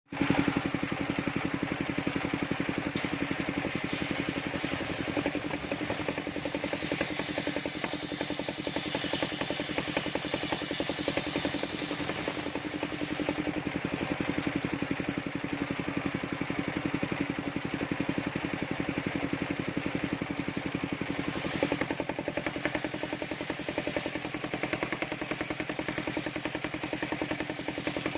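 The engine of a mobile circular sawmill running steadily, with a fast, even beat and a constant hum.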